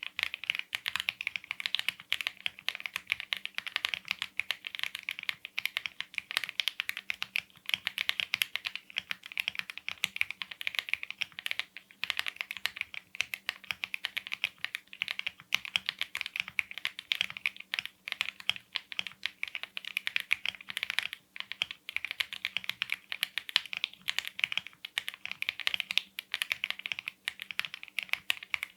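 Mechanical keyboard fitted with Leobog Nimbus V3 linear switches being typed on fast and without pause, a dense run of keystroke clacks.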